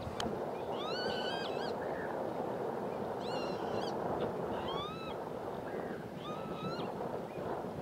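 Gulls calling: about four short calls spaced a second or two apart, each rising and then holding level, over a steady rush of background noise.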